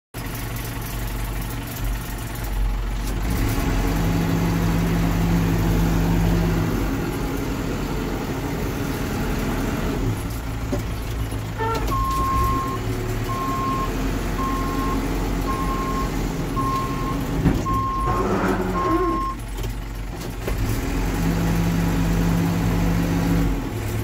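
A 2001 New Holland LB90 backhoe loader's diesel engine running as the machine drives, revving up twice. Midway its reversing alarm beeps about once a second, some eight times.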